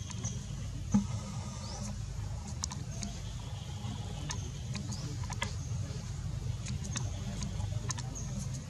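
Outdoor ambience: a steady low rumble with scattered sharp clicks, one louder knock about a second in, and faint high chirps.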